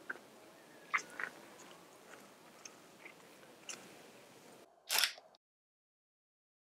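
Faint outdoor background with a few small clicks and rustles of a camera being handled. About five seconds in comes a single loud camera shutter click as the picture is taken, and then the sound cuts to silence.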